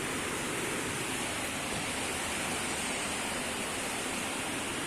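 Steady, even hiss with no distinct sounds and no audible breathing rhythm.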